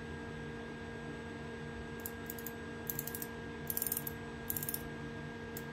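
Micrometer's ratchet thimble clicking in several short quick runs as it is turned to close on the workpiece, starting about two seconds in, over a steady low hum.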